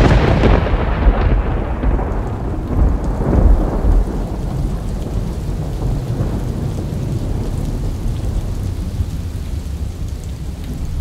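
Thunder: a deep rumble that is loudest at first, rolls on with a couple of swells and slowly fades, over a steady hiss of rain.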